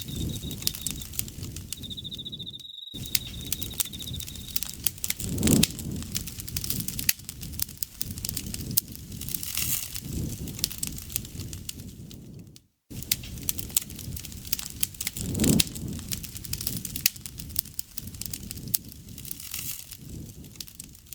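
Small campfire crackling and popping, with a steady low rush of burning beneath. An insect trills at one high pitch during the first few seconds. The sound cuts out for a moment twice.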